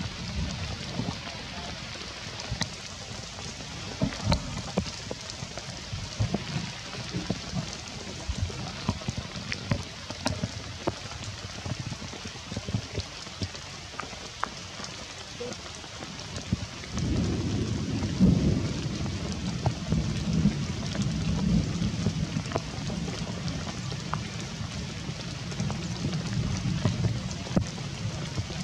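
Rain falling on bamboo foliage: a steady hiss scattered with the ticks of single drops. A little past halfway a deeper low rumble comes in and stays.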